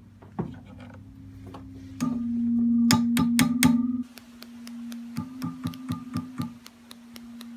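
Vox AC-15 valve amp singing by itself with no guitar connected: a steady pitched tone comes from the speaker, much louder from about two seconds in, the sign of a microphonic EL84 output tube. Taps with a chopstick on the tubes come through as sharp clicks, a cluster near the middle and a quicker run of about four a second later on.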